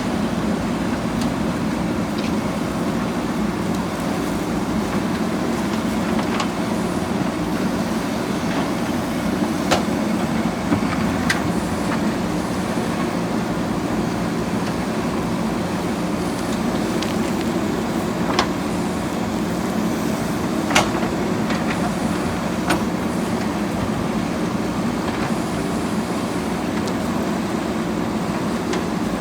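JCB backhoe loader's diesel engine running steadily, with a few sharp knocks scattered through.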